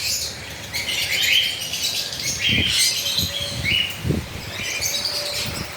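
Caged parrots (young cockatiels and lovebirds) chirping over and over, with a couple of soft wing flutters about two and a half and four seconds in.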